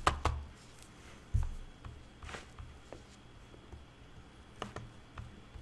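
Scattered light knocks and clicks, with a low thump right at the start and another about a second and a half in.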